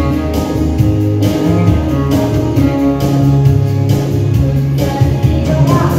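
Dance music playing: a guitar-led instrumental passage with a steady beat.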